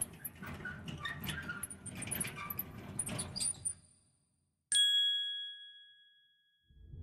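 Road case on casters rolling along, a busy run of rattling clicks and squeaks that stops about four seconds in as the case comes to rest. Then a single bright ding rings out and fades over about two seconds, and music starts right at the end.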